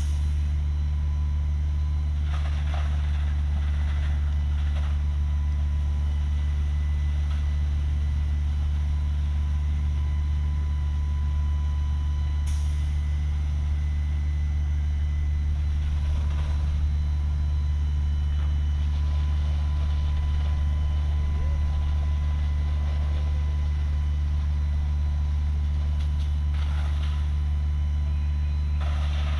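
Large diesel engine running steadily at a constant speed, the fire engine pumping water to the hose lines, with a deep unchanging hum.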